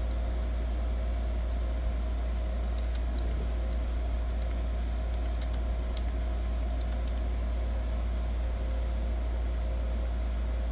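A steady low hum with a faint higher tone above it, and a few faint clicks between about three and seven seconds in.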